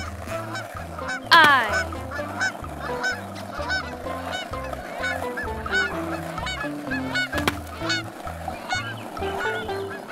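Many short goose-like honking bird calls repeating throughout, over a music track with a stepping bass line. About a second in, a loud quick falling swoop sound effect cuts across, and a single sharp click comes near the middle.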